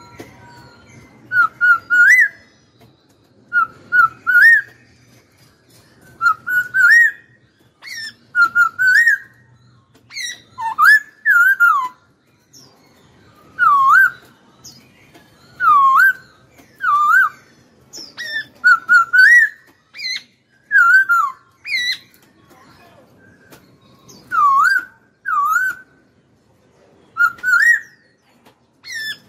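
Caged black-throated laughingthrush singing: short clear whistled phrases of rising and falling notes, repeated about every two seconds.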